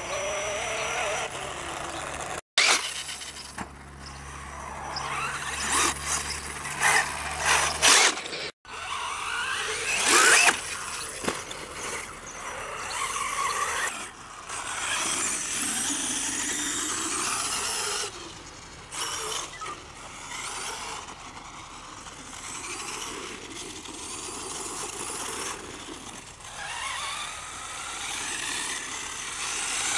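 Electric brushless 1/8-scale RC buggies running flat out on sand. The motors whine, rising and falling in pitch as the cars speed up and slow down. The sound breaks off abruptly twice at cuts between clips.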